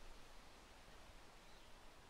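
Near silence: faint outdoor ambience, a soft even hiss with a little low rumble.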